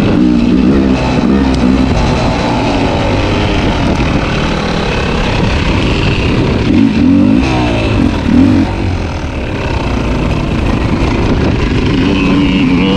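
Two-stroke dirt bike engine running hard on a trail, its pitch rising and falling as the throttle is opened and closed.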